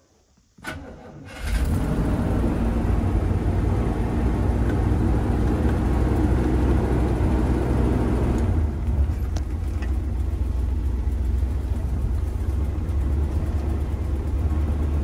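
1972 Barth motorhome's engine being started: a short crank about half a second in, catching about a second later and running fast and steady. About eight and a half seconds in it eases to a somewhat quieter, steadier idle.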